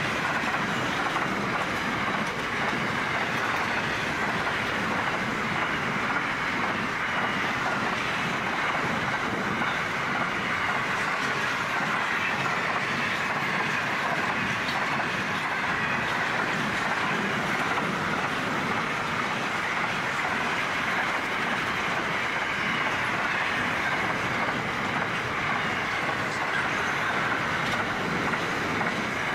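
Container wagons of a long freight train rolling past, a steady, unbroken noise of steel wheels running on the rails.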